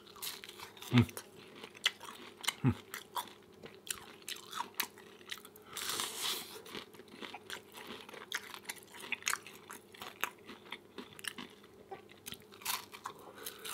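Close-miked chewing of a vegan hash brown omelette: wet mouth clicks and smacks at an irregular pace, with a short hiss about six seconds in.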